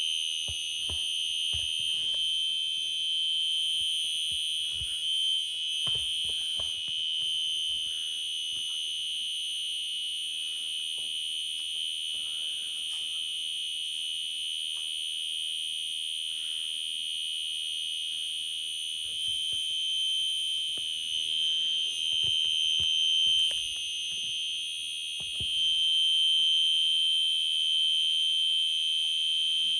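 Fire alarm sounding one unbroken high-pitched tone in continuous mode, set off by key-activating its pull station. A few faint knocks sound under it.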